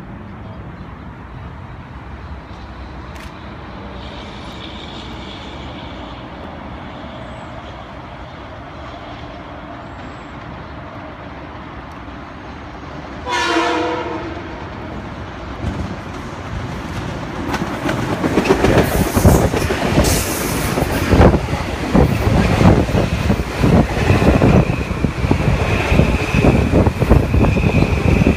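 An electric train sounds one short horn blast about halfway through. A few seconds later it comes through loudly with a dense clatter of wheels over rail joints, and a steady high whine joins near the end.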